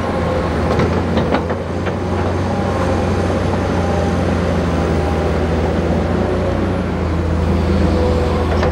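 Bulldozer's diesel engine running steadily, with a few short clicks about a second in.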